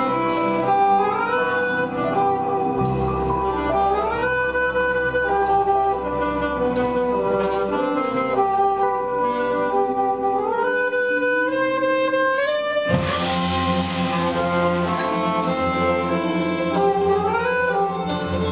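Live ensemble music led by a saxophone, its melody sliding up and down between notes over held lower notes, with light regular ticks. About thirteen seconds in, a fuller, deeper part comes in under it.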